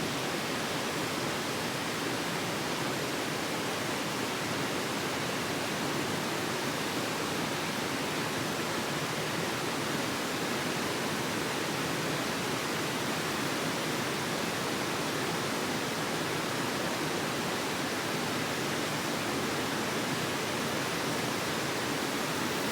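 Granite Falls waterfall pouring, a steady even rush of falling water.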